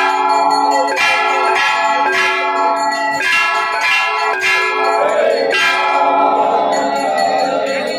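Temple bells rung repeatedly for the aarti, struck about once a second, each strike ringing on into the next.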